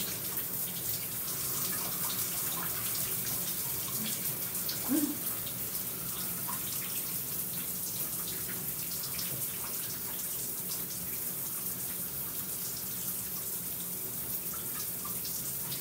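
A shower running steadily, its spray hissing and splashing onto the person and the tub floor, with small splatters throughout.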